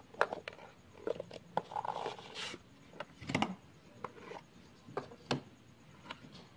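A small cardboard box and its packaging being handled and opened by hand: soft rubbing and rustling with scattered light taps and clicks.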